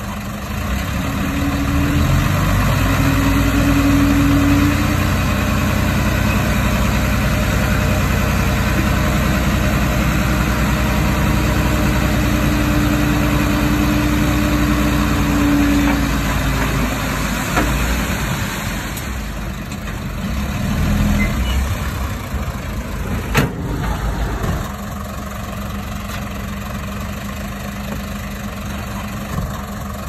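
Diesel engine of heavy earth-moving machinery running hard with a steady hum over it. It eases off a little past halfway, there is a single sharp click a few seconds later, and it then settles to a steady idle.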